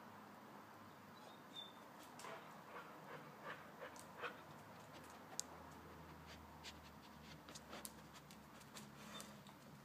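Near silence broken by a dog's faint, irregular clicks and small soft sounds, starting about two seconds in.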